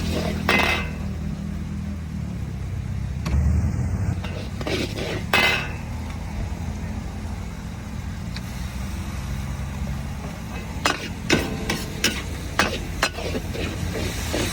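Metal spatula striking and scraping a wok while noodles are stir-fried. There are a few scattered clangs at first, then a quick run of clangs about twice a second in the last few seconds, over a steady low hum.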